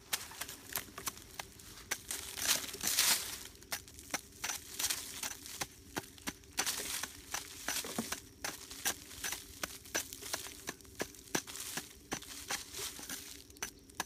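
Short wooden-handled digging tool scraping and chopping into dry soil and leaf litter, with quick repeated strokes, a couple a second, and dry leaves crunching.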